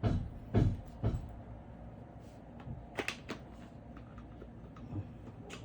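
Hardware parts being pushed and fitted into slots by hand, knocking and clicking. Three heavier knocks come in the first second or so, sharper clicks about three seconds in, and a couple more near the end.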